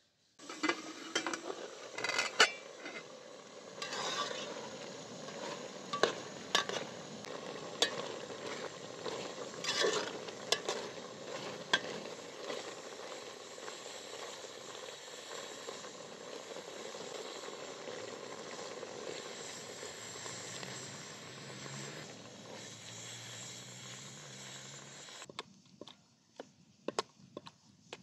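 Watermelon marmalade (chopped watermelon in syrup) sizzling in an aluminium pot while a metal spoon stirs it, scraping and knocking against the pot, most often in the first dozen seconds. Near the end the sizzle cuts off and only a few sharp knocks of stirring are left.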